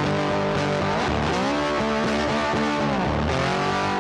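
Background music led by guitar: held notes that bend down in pitch and back up every couple of seconds.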